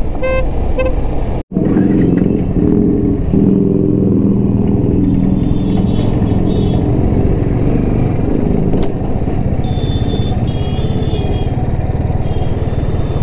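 Yamaha R15 sport bike's single-cylinder engine running under way, a steady low engine drone; the sound cuts out for an instant about a second and a half in.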